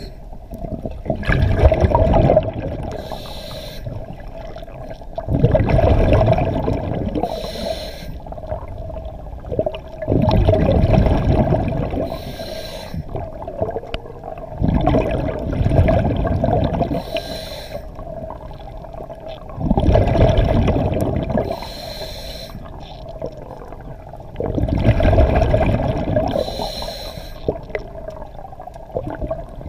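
A diver breathing through a scuba regulator underwater: each breath is a short hiss of inhaled air and a rumbling gush of exhaled bubbles, about six breaths, one every four to five seconds, over a steady hum.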